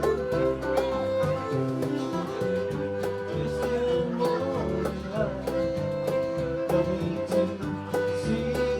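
Country-bluegrass band playing an instrumental passage: a fiddle carries long held notes, sliding between them about halfway through, over guitars, bass and light percussion.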